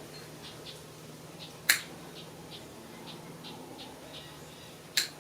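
Side cutters snipping the excess strands of a rubber tire plug off flush with a riding mower's tire: two sharp snips, one about a second and a half in and one near the end, with faint squeaks in between.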